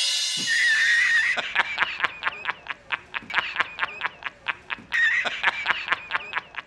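The tail of a cymbal crash dies away, then a man's rapid cackling laugh sound effect, 'ha-ha-ha' at about five or six bursts a second, broken twice by a thin, wavering squeal.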